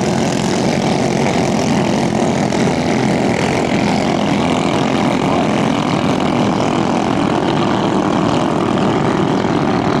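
Several mini racing boats' underbone motorcycle engines running flat out together, a loud steady high-revving engine noise that holds without a break.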